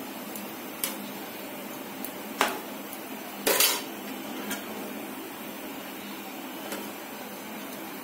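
A perforated metal spoon knocking and scraping against the metal pan while stirring a fish curry. There are a few separate clinks, the loudest about three and a half seconds in, over steady background noise.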